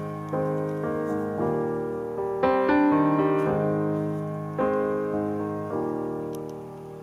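Background solo piano music: slow chords and single notes struck and left to ring, dying away near the end.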